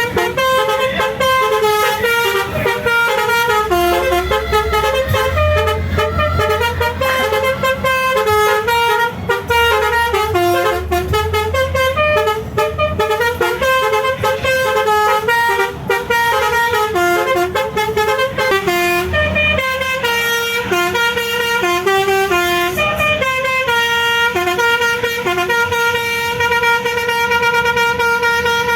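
Telolet horn, a multi-tone musical car horn, playing a long melody of quick, stepped notes that switch pitch every fraction of a second.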